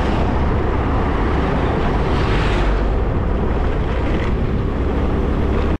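Wind rushing over the microphone along with the road and engine noise of a moving vehicle, swelling briefly about two and a half seconds in.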